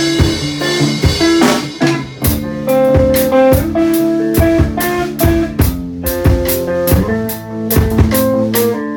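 Instrumental band music without vocals: a drum kit keeping a steady beat under sustained guitar notes.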